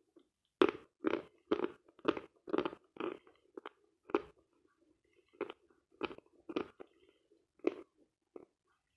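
Mouth chewing a mouthful of dense, dry 'Sloyka' chalk close to the microphone: a regular run of chews about two a second, thinning to scattered chews after about four seconds.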